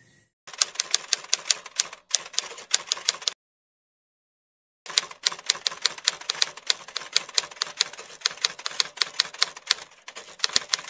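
Typing sound effect: runs of rapid keystroke clicks laid over text appearing letter by letter. The runs are broken by short pauses, with one silent gap of about a second and a half near the middle.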